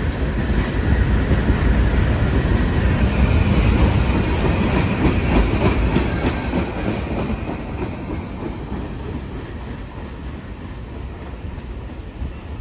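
A CSX freight train's cars rolling past, the wheels clicking over the rail joints with a steady rumble. The sound grows quieter over the second half as the train moves away.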